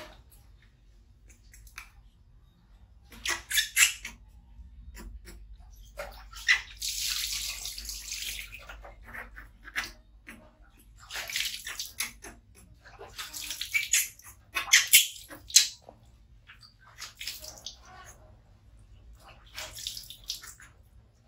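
Water splashing and pouring in a plastic basin as a baby monkey is washed by hand, coming in repeated bursts a few seconds apart, some lasting a second or two.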